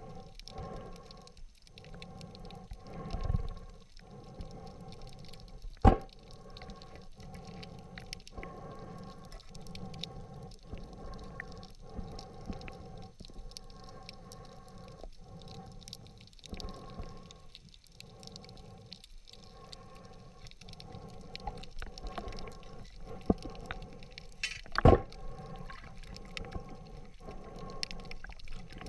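Underwater ambience heard through an action camera's waterproof housing: a steady hum of several held tones that keeps breaking off briefly, with occasional sharp knocks, the loudest about 6 and 25 seconds in.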